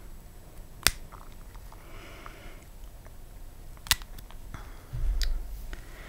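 Fingers with long nails squeezing and handling a soft silicone pimple-popping practice pad, with two sharp clicks about three seconds apart and a dull low thump near the end.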